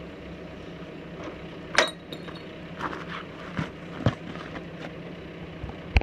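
Glass bottles clinking and knocking. The sharpest knock comes about two seconds in with a brief ring, followed by several lighter clinks. An engine idles steadily underneath.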